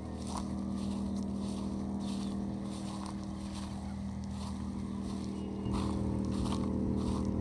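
A parked car's engine idling steadily, getting louder about three-quarters of the way through.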